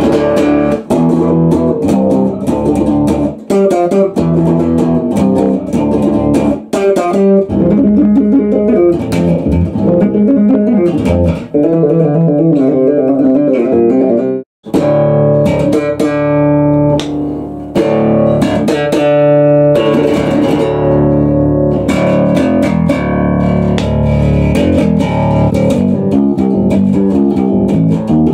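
JK Custom 'Lunatico' electric bass, an Explorer-shaped custom bass, played amplified in a fast, busy run of notes. Near the middle it is tapped with both hands on the fretboard, followed by a brief break before the playing resumes.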